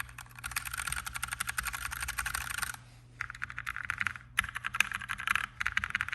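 Mechanical keyboard (Glorious GMMK) typed on rapidly, a fast stream of key clicks in runs with short breaks about three and four seconds in.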